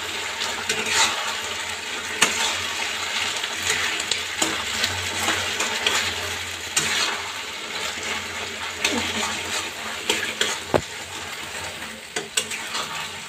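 Chilli chicken cooking in a kadai: fried chicken pieces being stirred through thick, simmering gravy with a metal spatula, a steady sizzle with frequent scrapes and knocks of the spatula against the pan.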